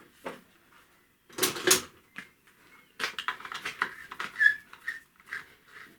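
Metal parts being handled and screwed together on the bench: a loud double clatter about a second and a half in, then a run of light clicks and scrapes with one brief squeak, as a fitting is worked into a freshly installed coil thread insert.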